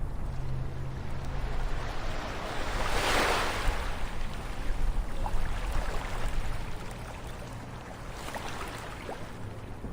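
Ocean waves washing onto a shore over a low rumble. One wave swells and breaks about three seconds in, and a smaller one follows near the end.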